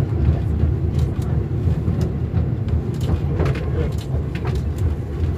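MAN railbus running, a steady low drone with scattered short clicks and rattles.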